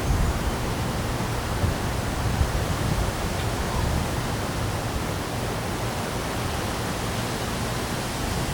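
Heavy wind and rain of a storm: a steady rushing noise with a gusty low rumble that rises and falls.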